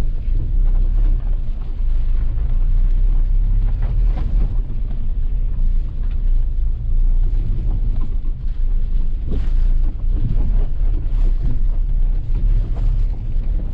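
A Tata Punch's 1.2-litre three-cylinder petrol engine pulling the car up a steep dirt climb, heard as a steady low rumble mixed with wind buffeting the microphone.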